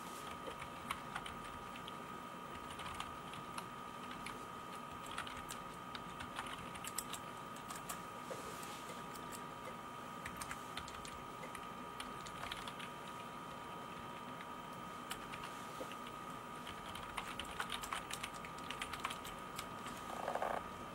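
Typing on a Micronics MANIC KM330 wireless slim keyboard: irregular clicks from its low-profile keys, coming in bursts with short gaps.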